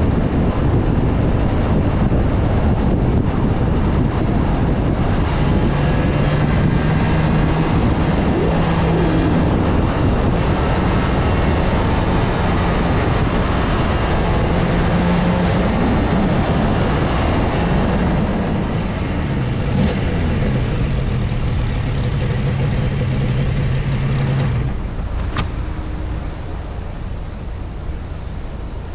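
Suzuki RG Gamma two-stroke motorcycle being ridden: heavy wind rush with the engine's note held fairly steady, drifting up and down a little, and dropping off in the last few seconds.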